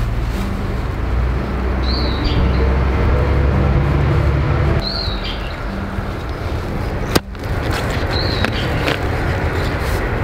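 A bird chirping three times, one short high call about every three seconds, over a heavy low drone that drops away about five seconds in. About seven seconds in comes a single sharp knock, a hoe striking at the base of a bamboo shoot, followed by faint knocks from digging.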